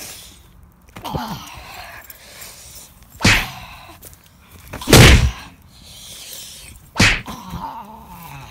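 Handling and wind noise on a phone microphone that is being swung about: rustling, with three loud thumping rushes about two seconds apart, the middle one the loudest.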